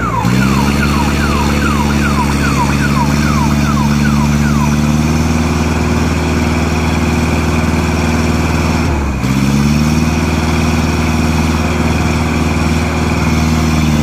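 Ajax Fiori Argo 2000 self-loading concrete mixer's diesel engine running under working load, its pitch sagging and recovering at the start and again about nine seconds in as the loader works the aggregate pile. For the first five seconds a quick series of falling chirps, about two or three a second, sounds over the engine.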